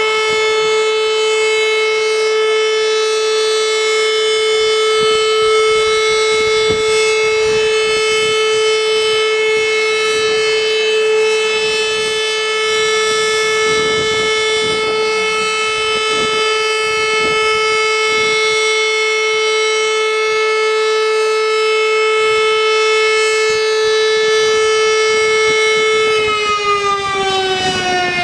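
Roof-mounted electromechanical fire-station siren sounding a loud steady tone as the commemorative signal for the Warsaw Uprising anniversary. Near the end the pitch starts to fall smoothly as the siren winds down.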